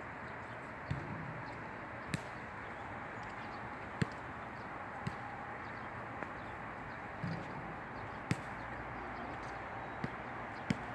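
Steady rushing of wind, with sharp short clicks or knocks every second or two at irregular intervals.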